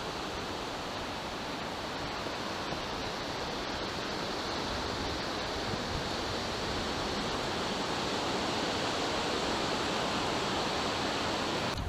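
Small river's water rushing steadily over shallows, an even hiss that grows slightly louder and cuts off abruptly near the end.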